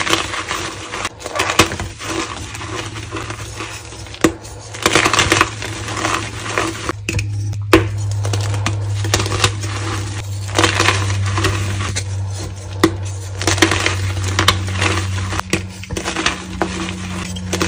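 Dyed gym chalk being squeezed, broken apart and crumbled by hand: dry crunching and crackling in irregular bursts, with a steady low hum underneath.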